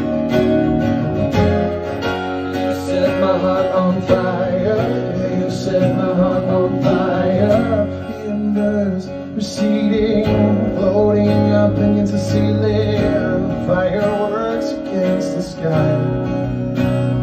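Acoustic guitar strummed live through a PA, with a man's voice singing over it at times, without clear words.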